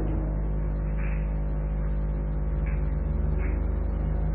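Steady low hum and hiss of an old recording's background noise, with no speech.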